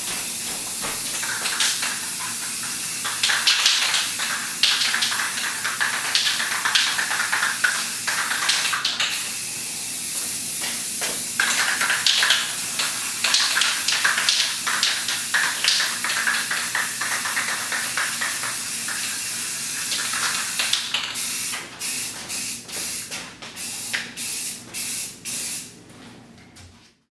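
Aerosol spray can hissing as lines are sprayed onto a wall: a long, steady hiss, then, near the end, a run of short bursts as dashes are sprayed, before it cuts off.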